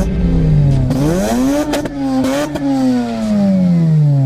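Mazda RX-8 rotary engine revving through a Cobra Sport catback exhaust. The pitch dips, climbs to a high held rev about midway, then falls slowly, with a few sharp cracks from the exhaust.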